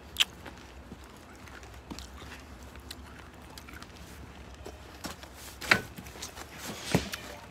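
Footsteps and handling knocks as someone walks and steps up onto a camper's diamond-plate step. One sharp knock right at the start and two louder knocks near the end.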